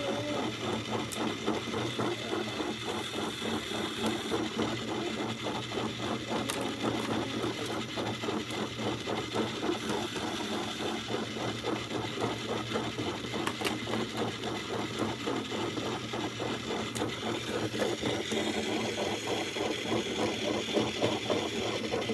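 Small electric motor of an egg-decorating spinner running steadily, turning the egg with an even rhythmic rattle.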